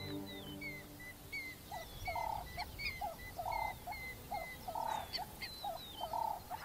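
Wildlife ambience of calling animals: a string of short, high, falling chirps, joined about two seconds in by a lower call repeated evenly two or three times a second.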